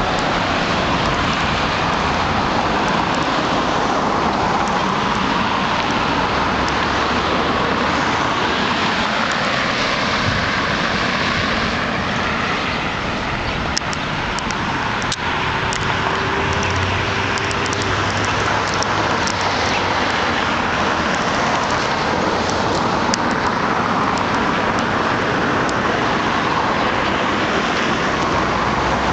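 Steady road traffic noise, an even, constant hiss with no break, and a brief faint tone about halfway through.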